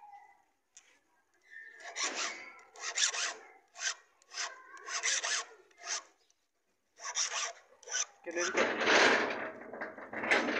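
Hand file rasping across a motorcycle key blank as a replacement key is cut by hand: a run of short, separate strokes, then a longer, louder stretch of scraping near the end.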